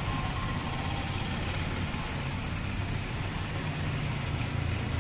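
Street traffic: vehicle engines idling and running slowly, over a steady hiss of rain.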